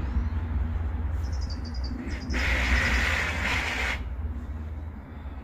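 Reciprocating saw (Sawzall) giving a short burst of running about two seconds in that cuts off abruptly, over a steady low rumble. It is the sound of a saw that is failing, which the owner fears is the end of it.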